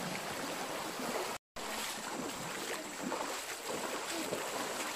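Steady rushing of a shallow, stony stream, broken once by a short silent gap about one and a half seconds in.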